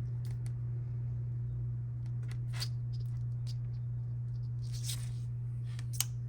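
A steady low hum with scattered light clicks and rustles of small parts and cable being handled at a workbench.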